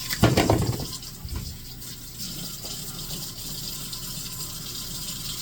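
Kitchen tap running into a sink, a steady hiss of water, with a louder splash or knock in the first second.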